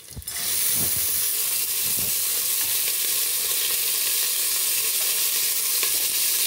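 Soaked chana dal (split chickpeas) tipped into hot oil and whole spices in an aluminium pressure cooker, setting off a steady sizzle that starts suddenly about a third of a second in, as the dal is turned with a spoon.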